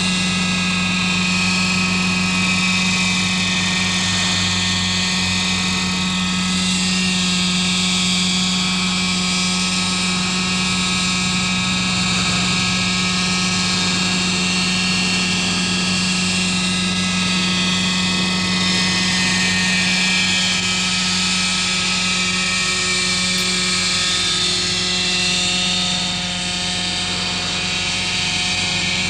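Radio-control model helicopter's small two-stroke glow engine and rotors running steadily in flight: a constant engine note with many overtones that barely changes pitch, easing slightly in loudness near the end.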